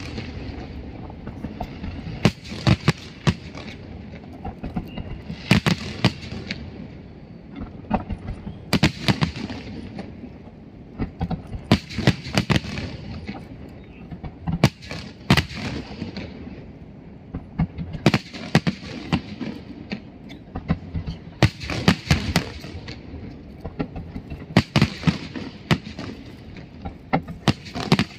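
Fireworks bursting in repeated volleys: a cluster of sharp bangs and crackles about every three seconds.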